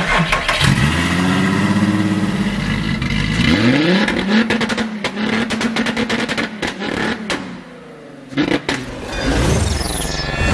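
Mid-mounted VW VR6 engine in an Acura Integra revving: the revs climb twice in the first few seconds, hold steady, and fall off about eight seconds in.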